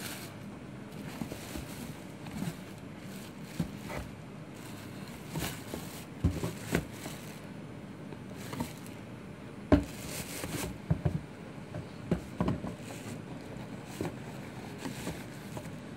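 Plastic wrapping and paper stuffing rustling and crinkling as leather sneakers are handled in a cardboard shoebox, with scattered light knocks and scrapes; the sharpest knock comes near the middle.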